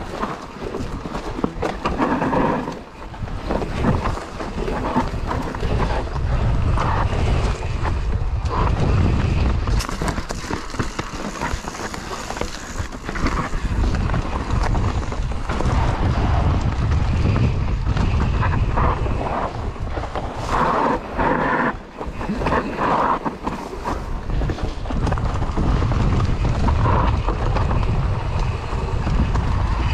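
Santa Cruz Nomad full-suspension mountain bike running fast down a rough dirt trail: tyres rolling over dirt, roots and rocks, with the frame and drivetrain clattering irregularly. A heavy, steady rumble of wind buffets the microphone throughout.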